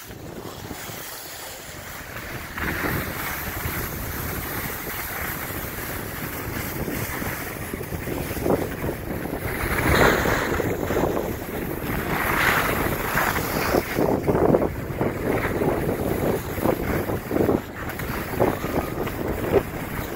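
Wind rushing over the microphone while skiing downhill, mixed with the hiss and scrape of skis sliding on packed snow, swelling in several surges.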